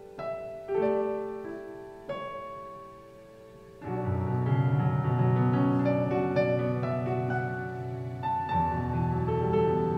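Slow background piano music. A few sparse, separate chords give way about four seconds in to a fuller, sustained passage over a low bass note.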